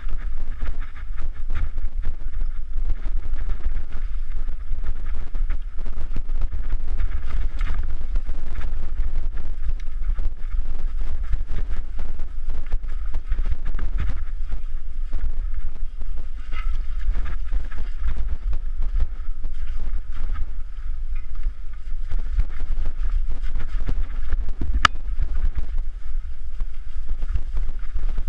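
Mountain bike ridden fast down a rough trail, heard through a GoPro's microphone: a heavy, steady wind rumble on the mic with constant irregular rattling and clatter from the bike over rough ground. Near the end comes a single sharp click.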